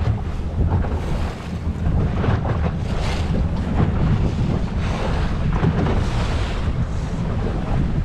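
Boat under way at sea: a low engine drone under wind buffeting the microphone and the wash of waves.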